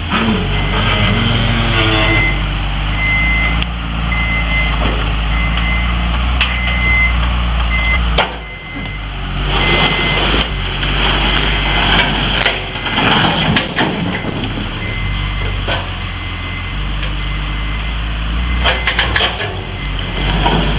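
Diesel engine of a Hyundai 740-3 wheel loader running under work, its backup alarm beeping at an even pace in several stretches, with scattered sharp knocks and cracks as the machine breaks up the old bridge's timbers.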